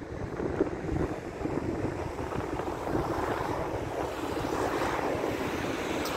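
Wind buffeting the microphone outdoors: a steady, uneven low rush with no voices.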